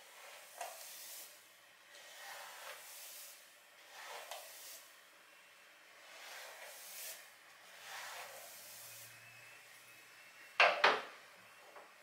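Soft swishing, rustling strokes of long hair being handled and brushed up, one every second or two, then a sharp clack about eleven seconds in as a hairbrush is set down on the sink counter.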